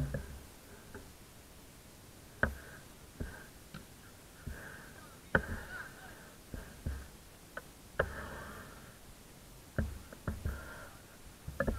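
A football being kicked during play: a handful of sharp thuds, a couple of seconds apart.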